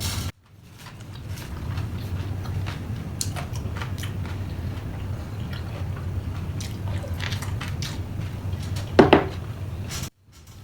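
Close-up eating sounds: chewing and biting with small mouth smacks and clicks, over a steady low hum. A short, louder noise comes about nine seconds in.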